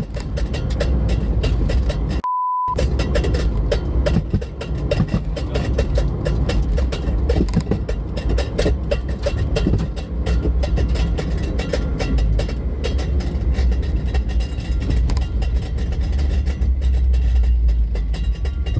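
A car on the move: a steady low rumble with a lot of buffeting and rattle over it. About two seconds in, the sound cuts out for a brief one-pitch censor bleep.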